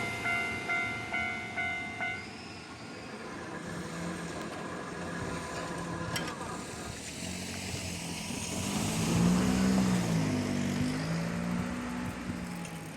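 Japanese railway level-crossing warning bell ringing in quick, evenly spaced dings, about two to three a second, that stop about two seconds in as the crossing clears. After that a motor vehicle's engine runs, its pitch rising and falling, loudest around the middle of the stretch.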